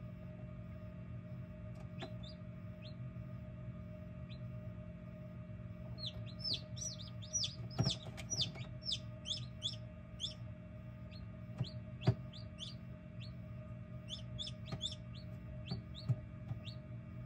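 Newly hatched chicks peeping inside an egg incubator: short, high, falling peeps, a few at first, then a busy run of them from about six seconds in. A steady hum runs underneath, and a few sharp taps stand out, the loudest about twelve seconds in.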